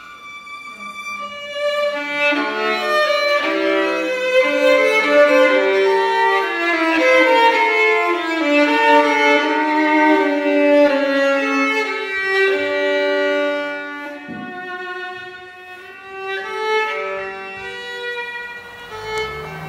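Violin playing a classical melody, its notes ringing into one another. Near the end a low steady tone comes in underneath.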